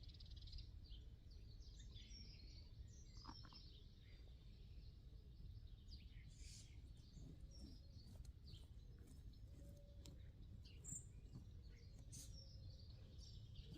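Faint birdsong: several small birds chirping and trilling on and off, over a low steady background rumble.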